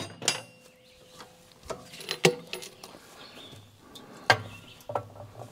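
A few scattered sharp knocks and metallic clinks, the loudest about two seconds in and again about four seconds in, over a faint low hum.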